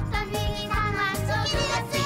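Children's cartoon music with a melodic line over a steady beat.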